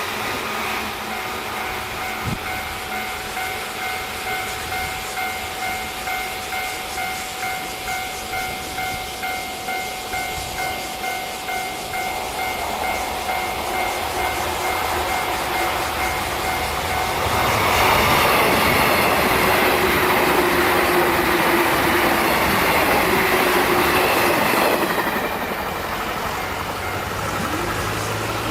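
Japanese railway level-crossing warning bell ringing in a steady, rapid pulse; about seventeen seconds in, a train passes, its wheels clattering on the rails and louder than the bell for about seven seconds before fading.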